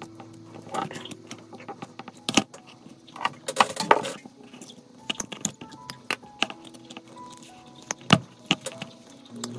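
Irregular clicks and taps from handling small tools and lure materials on a workbench, loudest in a cluster about three and a half seconds in and in a sharp click near the end, over soft background music.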